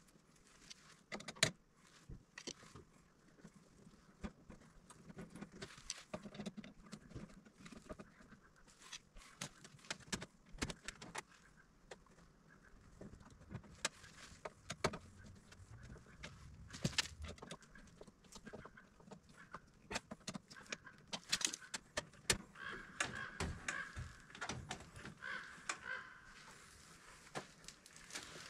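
Faint, scattered clicks, taps and small metallic rattles of hand tools and wires being worked into a residential breaker panel, with wire being landed on the breaker terminals.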